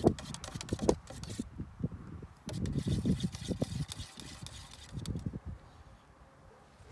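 A wooden stick stirring thick alkyd varnish in a metal tin, knocking and scraping against the can with the liquid sloshing. There are a couple of sharp knocks in the first second, then bouts of stirring, the longest in the middle.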